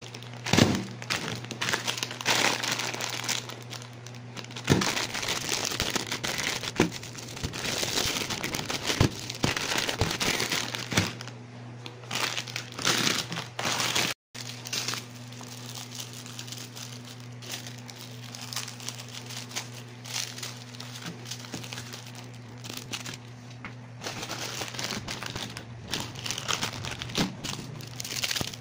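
Plastic food packaging being crinkled and handled in irregular bursts of rustling, over a steady low hum.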